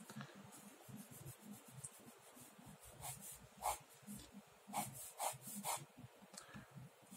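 Ballpoint pen scratching across paper in short sketching strokes, a handful of louder quick strokes from about three seconds in.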